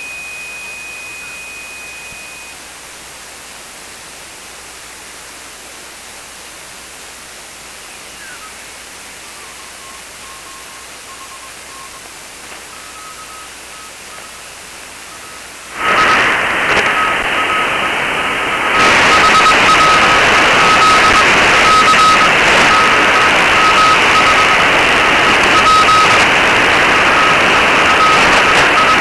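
Shortwave receiver audio from an SDR tuned in CW mode on the 30-metre amateur band. A steady whistle for the first couple of seconds, then band-noise hiss. A Morse code signal keys on and off as a beeping tone from about a third of the way in. About halfway through the hiss jumps much louder, and again a few seconds later, while the Morse keeps going.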